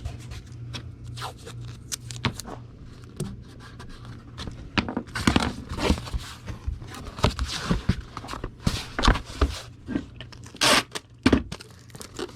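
Tape being pulled off the roll and torn, with irregular scrapes, taps and crinkles as a comic is taped down inside a cardboard mailer; the busiest, loudest handling comes in the middle.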